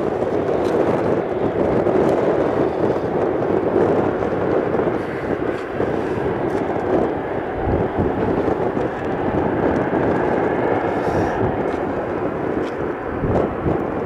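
Boeing 737-800's CFM56-7B turbofan engines at takeoff thrust during the takeoff roll, a steady, loud jet engine noise.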